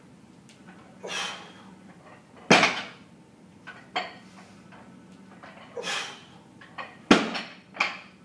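A heavy dumbbell thudding down onto rubber gym matting twice, about four and a half seconds apart, between repetitions of dumbbell snatches, with lighter knocks of the dumbbell and short forceful exhalations in between.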